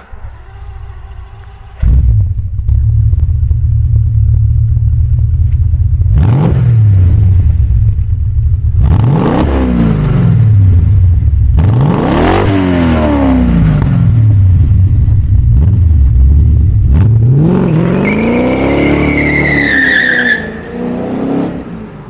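A Maserati Ghibli 5000 SS's 5.0-litre V8 is cranked by the starter and catches about two seconds in. It settles into a loud idle at the exhaust, with the throttle blipped several times so the revs climb and fall back. Near the end it revs up hard and pulls away, and the sound falls off.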